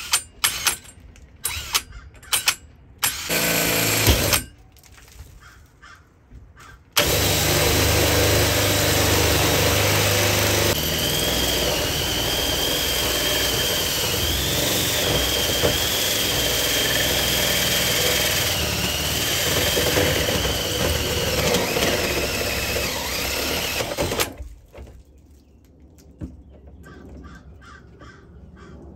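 A cordless drill drives a Milwaukee Hole Dozer bi-metal hole saw through a Sprinter van's steel roof panel. It starts with a few short trigger blips and a one-second run, then makes one steady cut of about seventeen seconds, grinding with a wavering high whine from the teeth on the steel. The cut stops abruptly as the saw breaks through.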